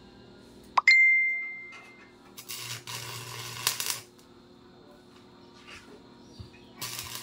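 A sharp metallic clang on the steel sidecar frame, ringing for about a second, then two bursts of arc-welding crackle and buzz: a longer one of about a second and a half, and a short one near the end, as tack welds are struck on the frame.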